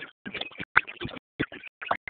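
Indistinct voices, broken up into short choppy fragments with gaps between them.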